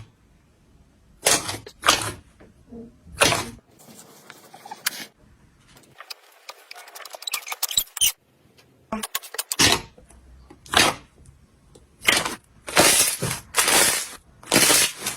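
Slime being squished and poked, giving a string of sharp, irregular pops and clicks, with a softer crackling stretch in the middle and the pops coming thicker near the end.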